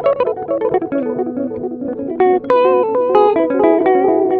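Electric guitar played through a Moody Sounds Mushroom Echo delay pedal: a run of picked single notes ringing over one another, with a sharper note struck about two seconds in.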